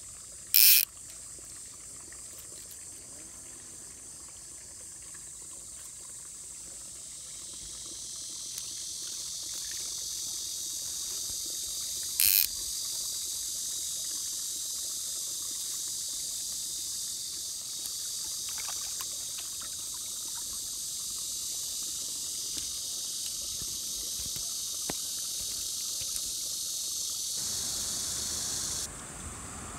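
Steady high-pitched chorus of insects, swelling about a quarter of the way in and cutting off shortly before the end. Two short, loud bursts of hiss come, one just after the start and one near the middle.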